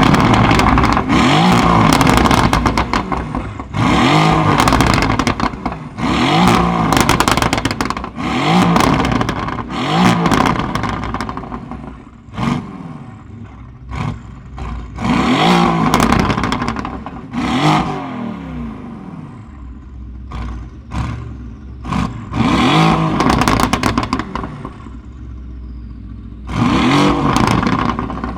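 Mercedes-AMG GT R's twin-turbo V8 with a loud aftermarket exhaust, revved about a dozen times, each rev rising and dropping back. Sharp crackles and pops on the overrun come between revs, over the idle.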